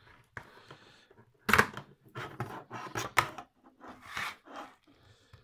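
Handling noise: sharp knocks and clicks with rustling in between as circuit boards and display housings are picked up and moved on a desk. The loudest knocks come about a second and a half in and twice near the three-second mark.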